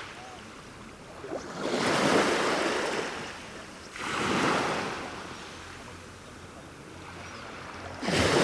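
Ocean waves breaking and washing up a beach. Three surges of surf come in, about two to four seconds apart, with a softer hiss of water between them.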